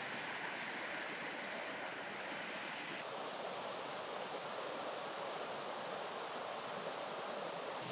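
Shallow woodland stream rushing over stones and small rock steps, a steady watery noise whose tone shifts slightly about three seconds in.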